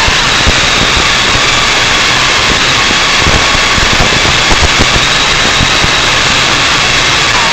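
MJX X101 quadcopter's motors and propellers whining steadily over a loud rushing noise, the pitch shifting slightly as the throttle changes. A few brief knocks come about halfway through.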